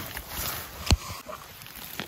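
Rustle of a jacket sleeve brushing close to the microphone, then a single sharp click about a second in, as a gloved hand reaches down into moss among funnel chanterelles.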